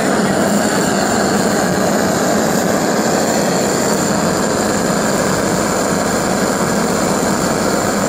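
Homemade Tesla pulse detonation engine, an aluminium block chamber with a spark plug, burning LPG with compressed air and running steadily in resonance with a loud, continuous drone. Its water jacket and steam jets are producing superheated steam.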